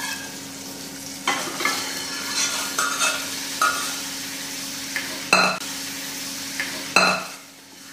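Cooked toor dal poured into a metal pan of hot tomato tadka, sizzling, while a steel ladle stirs it in and clinks against the pan several times. The sizzle dies down near the end.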